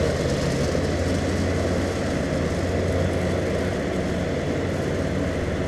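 Steady low rumble and rush of fast, turbulent river water pouring below a dam, unchanging throughout.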